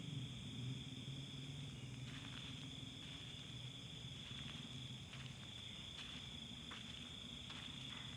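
Crickets chirring in one steady, high, even tone, with soft crunching footsteps on dirt and gravel from about two seconds in.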